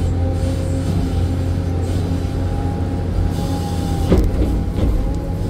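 Excavator's diesel engine running steadily under digging load, heard from inside the cab, with a steady whine over the low drone. A single sharp clank about four seconds in.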